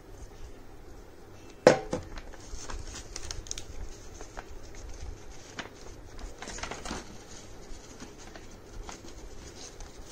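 Paper being handled and pressed down by hand on a table. A sharp knock comes just under two seconds in, followed by soft rustling and light taps.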